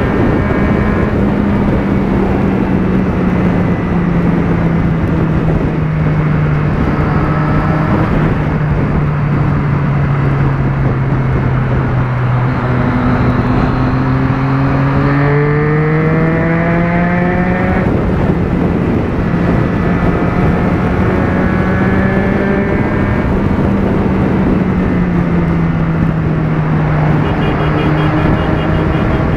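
Motorcycle engine running at highway speed under a heavy rush of wind. Its note sags slowly, then climbs steeply about halfway through as the throttle opens, and settles back to a steady cruise.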